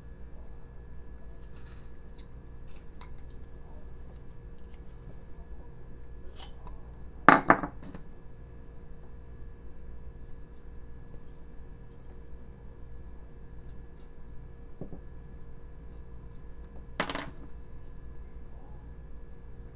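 Faint knife cuts and scrapes on a basswood carving over a steady room hum, with a sharp double knock about seven seconds in and a single knock near the end, from hand tools being put down on or picked up from the wooden workbench.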